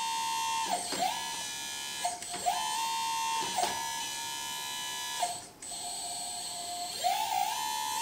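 Hydraulic pump of a 1/14 RC excavator, running at about 80%, giving a steady electric whine. Its pitch dips and recovers several times as the arm and bucket are worked, with a longer lower stretch about halfway through.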